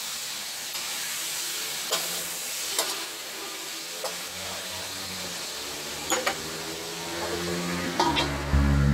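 Pig liver and ginger sizzling in a wok as the liquid they released cooks down, with a metal spatula scraping and tapping against the wok about six times. A steel wok lid goes on near the end while a low rumble swells up.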